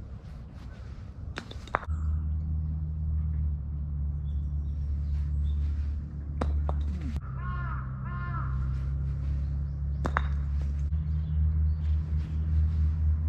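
A crow cawing several times in two quick groups around the middle, over a steady low rumble, with a few sharp knocks scattered through.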